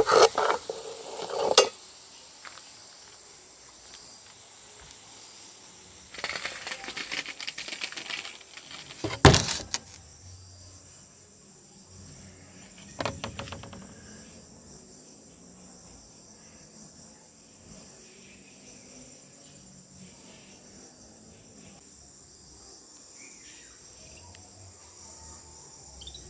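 Crickets chirping steadily in a regular pulse, about one and a half chirps a second, with a steady high insect hum under them. Over this come bursts of metal clatter from pots and utensils being handled, the loudest a sharp knock about nine seconds in.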